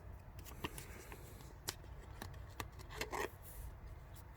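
A Pokémon card being slid into a plastic card sleeve by hand: faint rustling of the plastic with a few light clicks, and a short rustle about three seconds in.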